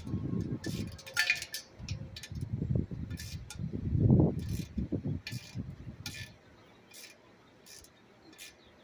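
Hand tools working on an air compressor being taken apart: scattered metal clicks and clinks over low rumbling handling noise, which drops away about six seconds in, leaving a few isolated clicks.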